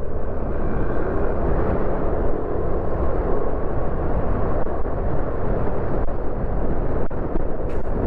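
Wind rushing over a helmet-mounted Boya LM20 lavalier microphone on a moving motorcycle: a steady low rumble and hiss, with the motorcycle's engine and road noise beneath it.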